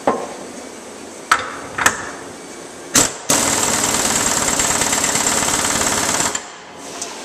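Ingersoll Rand 231C half-inch air impact wrench hammering a 1-inch bolt tight in a bench vise, a loud rapid rattle for about three seconds that cuts off sharply. Before it come a few sharp clicks as the bolt and socket are handled and set up.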